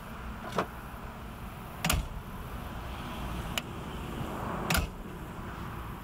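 Four separate sharp knocks or clicks, spaced one to two seconds apart, the second and last the loudest, over a low steady rumble.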